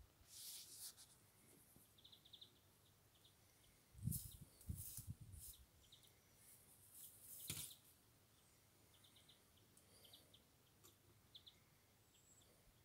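Metal hive tool scraping and prying at the wooden frames of a beehive, in short bursts of scraping with dull knocks, the loudest about four seconds in and again a little after seven seconds.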